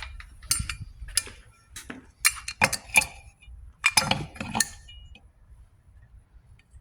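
Small metal engine parts clinking and knocking together as they are handled and fitted during water pump reassembly: an irregular run of sharp clinks.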